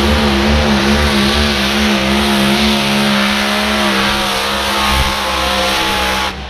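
A pulling tractor's engine running loud and steady, its pitch wavering slightly, until the sound cuts off abruptly near the end.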